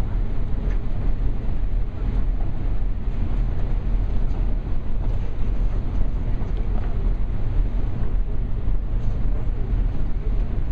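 Steady low rumble of the Condor Vitesse high-speed ferry under way, mixed with wind noise on the microphone.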